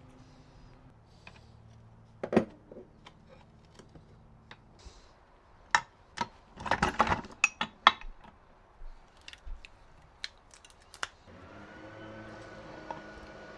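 Metal engine parts and hand tools clinking and knocking as they are handled, in a busy run of clatter about halfway through. A steady mechanical whir starts near the end.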